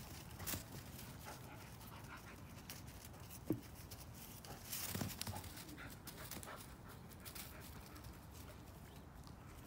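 A German shepherd puppy and a potbelly pig sniffing and snuffling at each other on grass, with small scattered rustles. There is a brief sharp sound about three and a half seconds in and a louder breathy burst around five seconds in.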